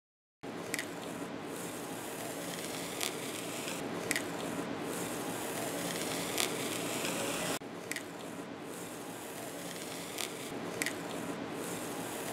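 Blue painter's masking tape being peeled off freshly painted cast-iron shaper parts: a steady noisy peeling with a few small clicks scattered through it.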